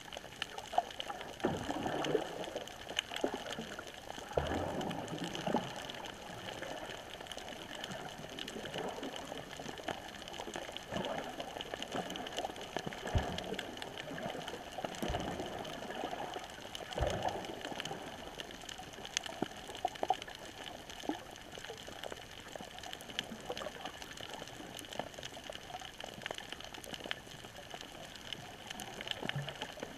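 Underwater sound recorded over a coral reef: a steady wash of water movement, dotted with many faint scattered clicks and crackles, and a few louder swishes of water.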